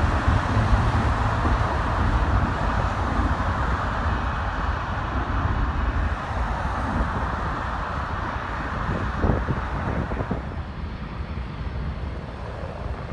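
Jet airliner noise from a JetBlue Airbus A321 landing, a steady rumble that slowly fades as it moves away down the runway, mixed with road traffic passing. Near the end it turns quieter, with wind on the microphone.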